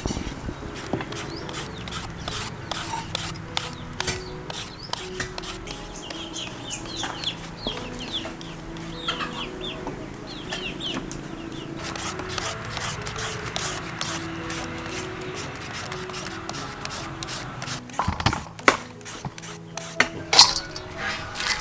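Hand peelers scraping the skin off green papaya and mango in quick repeated strokes, with a few louder knocks near the end.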